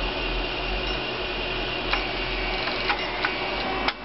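Stepper motors of a homemade coil winder running, a steady whine and hum as the spindle turns and lays string onto it. A few sharp clicks come in the second half, the last followed by a brief dip in the sound.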